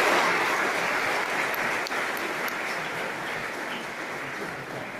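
Audience applauding, loudest at first and slowly dying away.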